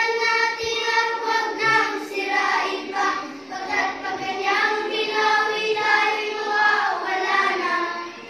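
Singing voices carrying a slow melody in long held notes that slide between pitches; the song fades to a low level just before the end.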